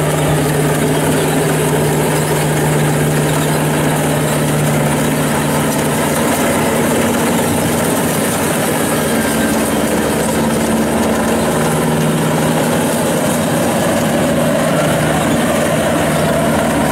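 Yanmar AW82 combine harvester, fitted with a Hyundai turbo, running steadily while cutting rice. Its deep engine note eases for a few seconds in the middle, then comes back.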